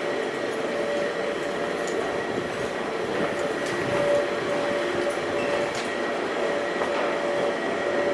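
New York City subway train running: a steady rush of noise with faint held tones over it.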